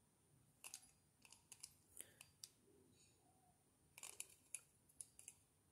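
Scattered faint clicks and light taps from fingers handling a plastic-and-metal Beyblade Burst spinning top as it is turned in the hands, with a small cluster of clicks about four seconds in.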